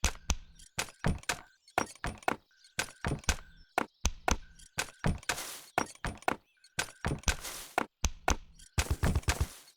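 An improvised rhythmic beat of knocks and clacks, several a second, tapped out on a leg brace and other things. A short squeak recurs through it, and brief rattling shakes come in near the middle and end.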